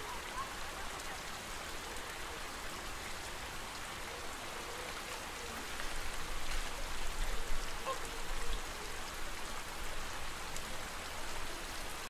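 Steady noisy background with a few faint, short flamingo calls, one near the start and one about eight seconds in. A low rumble swells from about six to eight and a half seconds in.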